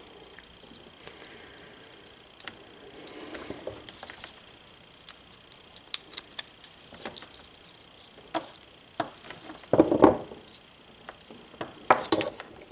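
Scattered light clicks and small metallic rattles of wire and crimp connectors being handled, with a louder knock or clatter about ten seconds in and a few more clicks near the end.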